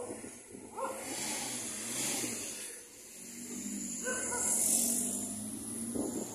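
Outdoor ambience with two long swells of hiss and a few short animal calls.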